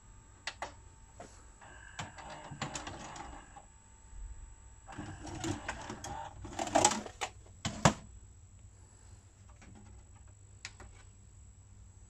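Akai VS-J700 VHS video player's tape transport mechanism working after stop is pressed: a button click, a short motor whir as the tape is unthreaded, then a run of clicks and clunks as the cassette is ejected and pulled out of the slot, loudest about two-thirds of the way through.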